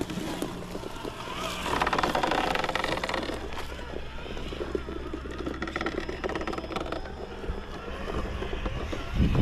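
Traxxas TRX-4 radio-controlled crawler's brushed electric motor and gearbox whining as it creeps over rock and dirt, with its tyres scrabbling on the stone. It gets louder for about two seconds near the start, and there is a short thump just before the end.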